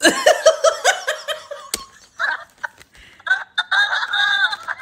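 Hearty laughter: a rapid run of ha-ha pulses, then breathy gasps and a longer laughing burst near the end. A single sharp click comes just before two seconds in.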